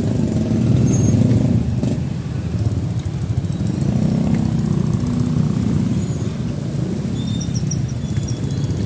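Motorcycle engine running at low speed in heavy road traffic, a steady low rumble that swells and eases.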